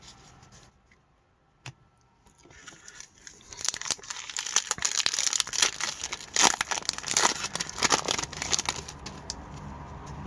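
Hockey card pack wrapper crinkling and tearing as the pack is ripped open, starting a few seconds in and lasting about five seconds, with many sharp crackles.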